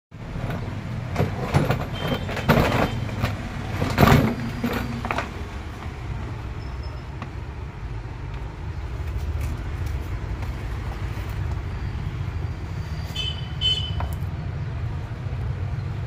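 Steady low rumble of background road traffic, with a run of knocks and clatters in the first five seconds and a brief high chirping about thirteen seconds in.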